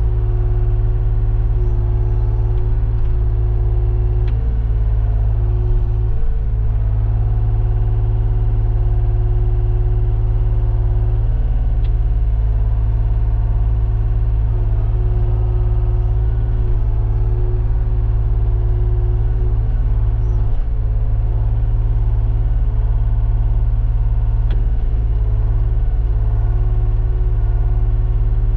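John Deere 35G mini excavator's diesel engine running steadily with a deep, even rumble. A higher tone above it fades out and comes back a few times.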